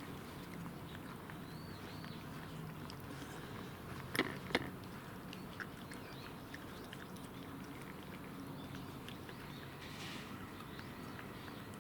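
Cat chewing food, with scattered small clicks and two sharp, louder clicks about four seconds in.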